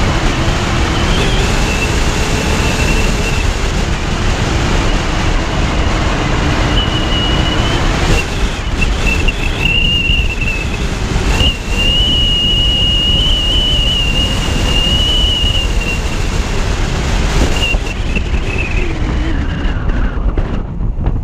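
Wind buffeting the microphone of a camera on the roof of a moving car, over steady road and engine rumble. A thin, wavering high whistle rides on top for much of the time.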